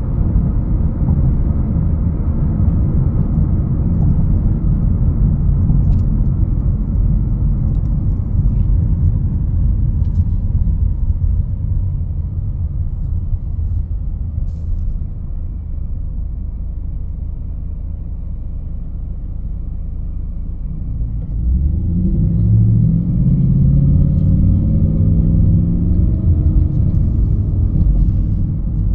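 2021 Honda HR-V's 1.8-litre four-cylinder engine and road noise while driving: a steady low rumble that eases off around the middle. About three quarters of the way in, the engine note rises as the car accelerates.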